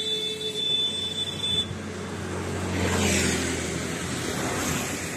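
A motor vehicle passes on the road, its engine and tyre noise swelling to a peak about three seconds in and then fading. Before it, a steady high-pitched whine cuts off about a second and a half in.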